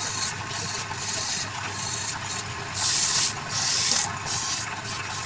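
Wood lathe running with a steady low drone while a tool or abrasive rubs against the spinning wooden workpiece in repeated hissing strokes, the two loudest a little past halfway.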